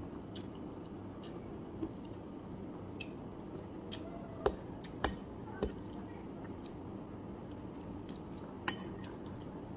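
Metal fork clinking against a plate while noodles are twirled and eaten: a handful of separate sharp clinks, the loudest near the end, over a steady low background noise.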